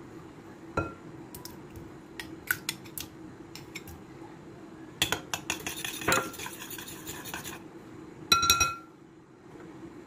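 Metal spoon clinking and scraping against a glass bowl as curd is spooned in: a knock near the start, scattered clicks, a quick run of taps and scraping around the middle, and a ringing clink near the end. A steady low hum runs underneath.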